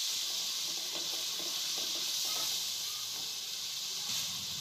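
Chopped tomatoes frying in hot oil in a kadhai, giving a steady sizzling hiss as they are stirred with a spatula.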